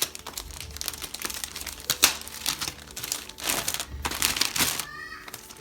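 Plastic wrapping crinkling and rustling as it is pulled off a new laptop, in irregular crackly bursts.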